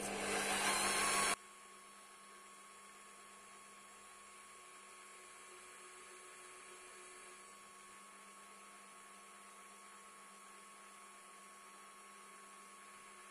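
A short, loud rush of noise cuts off abruptly about a second and a half in, followed by a quiet, steady electrical hum holding a few fixed tones.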